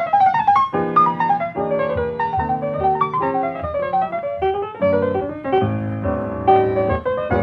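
Piano music: a quick succession of notes in rising and falling runs.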